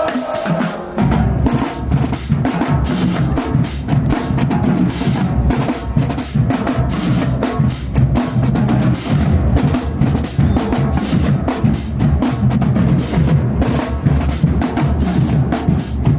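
Marching band drumline playing a cadence: rapid snare strokes and rolls over pounding bass drums, with the bass drums coming in about a second in and no horns playing.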